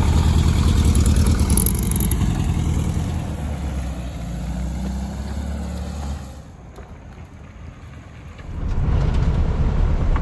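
Vintage VW Beetle engine pulling away and fading into the distance. After a couple of seconds of quiet, a Beetle engine is heard up close again, running as the car drives.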